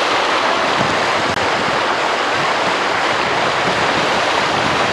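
Steady rush of white water running over rapids.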